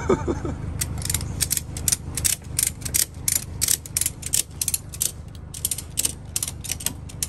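Ratchet tie-down strap buckle clicking as it is worked by hand: a run of quick clicks, about three or four a second, coming in uneven spurts.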